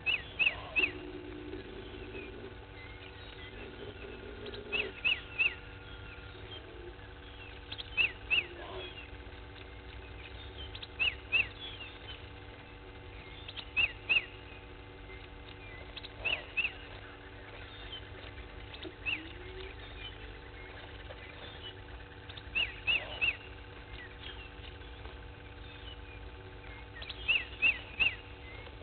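An animal's short, sharp high-pitched calls, two to four in quick succession, repeating every few seconds over a steady low hum.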